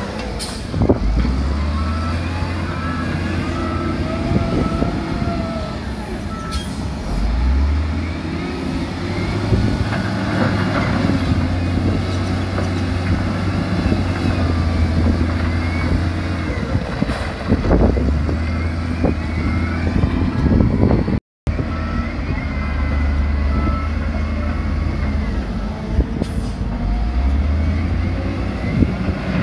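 Diesel engines of heavy earthmoving equipment (dump trucks and a wheel loader) running and changing pitch, with scattered knocks and clatter. A series of short, evenly spaced beeps sounds twice, early and again past the middle.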